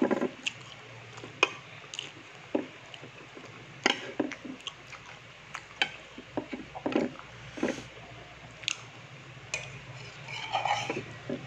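Close-up eating sounds: chewing, with scattered light clicks of a spoon and chopsticks against a plate, over a low steady hum.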